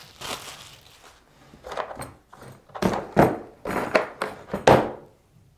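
Handling noise from a hard plastic tool case: a short plastic-bag rustle at the start, then about five knocks and clunks over the next few seconds as items are moved in the case and set down on the table.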